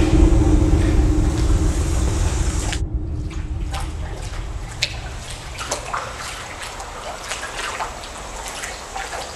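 A loud low rumble with a steady hum, cutting off suddenly about three seconds in, then water trickling in a drainage culvert with scattered drips.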